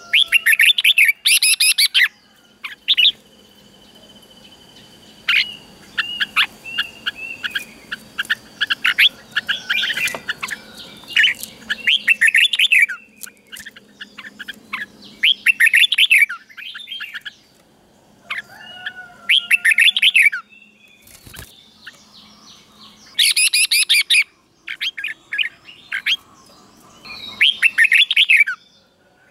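Red-whiskered bulbul singing: bursts of quick, bright chirping phrases every few seconds, with short pauses between.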